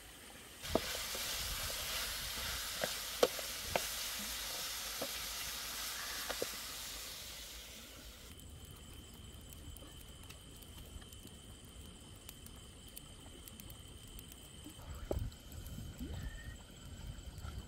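A wok of meat sizzling over a crackling wood campfire: a steady hiss with sharp pops, cutting off abruptly about eight seconds in. A quieter stretch follows, with a few low knocks of a spatula stirring the pan near the end.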